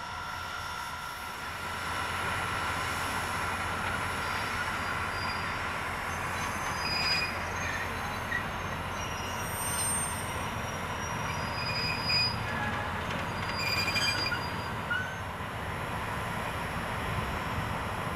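Passenger train cars rolling slowly on the rails: a steady low rumble with several brief high wheel squeals in the middle.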